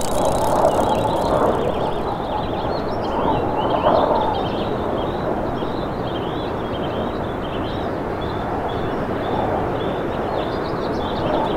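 Small birds chirping repeatedly over steady outdoor background noise.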